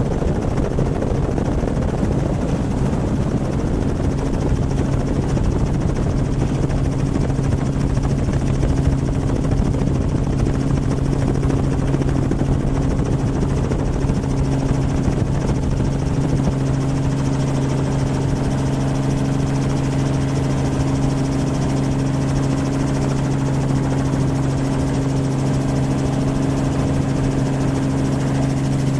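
Helicopter in flight, heard from on board: steady rotor and engine noise with a strong low hum and a second hum an octave above it.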